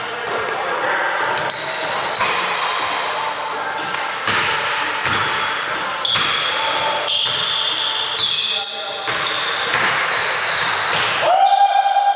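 A basketball bouncing on a hardwood gym floor, with several irregular knocks and indistinct voices of players echoing in the large hall.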